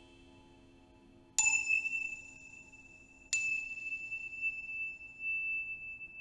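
Two sharp strikes on a small bell-like metal instrument, about two seconds apart, each ringing out bright and high and slowly fading. Under them a single high ringing tone holds steady.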